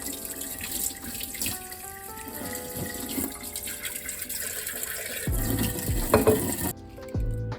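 Steady running water with soft background music over it. Near the end a few low thumps sound, and the water noise cuts off abruptly.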